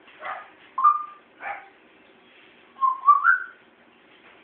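A house cat making short chirping calls: a few brief breathy chirps, then a rising two-note chirp about three seconds in.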